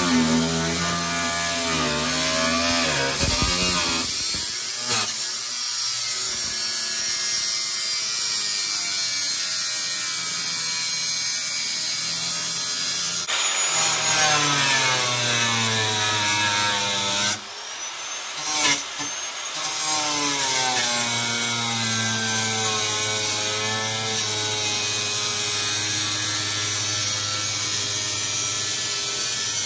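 Grinder cutting through metal, its motor pitch sagging and recovering as the disc bites; it breaks off briefly a little past halfway, then runs on.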